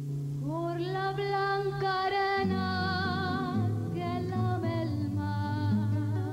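A woman singing a slow song to acoustic guitar accompaniment. Her voice comes in about half a second in, sliding up into a long held note with vibrato, over plucked guitar chords.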